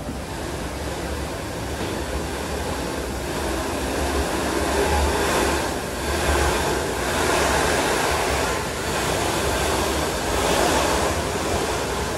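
Revolving-carpet snowboard simulator running: a steady low rumble from the moving belt, with a rushing hiss of the snowboard sliding on the carpet that swells and eases every second or two.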